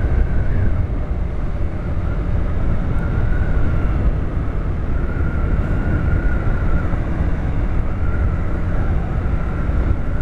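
Honda manual-clutch motorcycle's engine running steadily under load on an uphill climb in fourth gear, with wind rushing over the helmet-mounted microphone.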